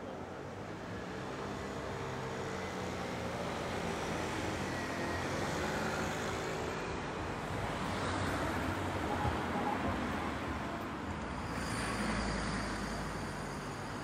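City street traffic: cars and vans driving past on a busy road, a steady mix of engine hum and tyre noise. Near the end a deeper rumble swells, with a faint high whine over it.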